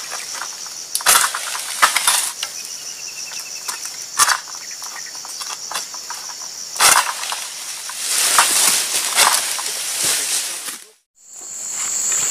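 Egrek, a pole-mounted steel harvesting sickle, hacking at oil palm frond stalks: a handful of sharp cutting strokes spread out, then a longer stretch of crunching and leaf rustling around eight seconds in. Insects buzz steadily throughout.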